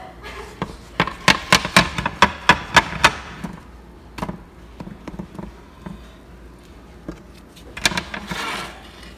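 A plastic spatula clicking and knocking against a nonstick electric griddle while lifting a pancake: about a dozen quick taps over two seconds, then scattered knocks and a short scrape near the end.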